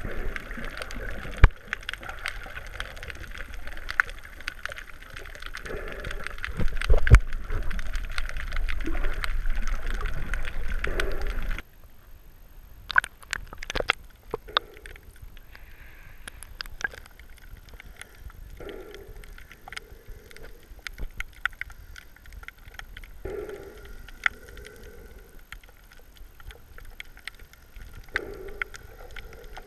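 Underwater sound through a submerged action camera's housing: muffled water noise with many small clicks and crackles. About twelve seconds in it cuts abruptly to a quieter stretch with low muffled swells every few seconds.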